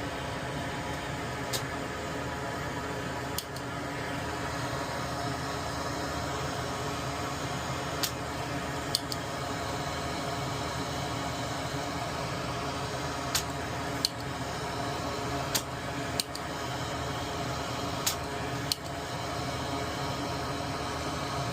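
Steady fan-like machine hum with about ten sharp clicks or taps scattered through it.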